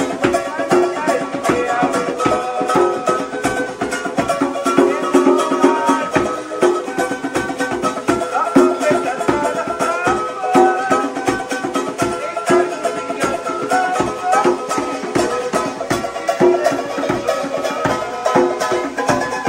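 Music with a fast, steady beat and a melody.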